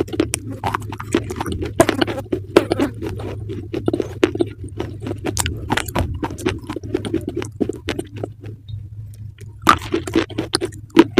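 Close-miked chewing of crunchy food: a dense run of crisp crunches and mouth sounds, with a short pause about eight and a half seconds in.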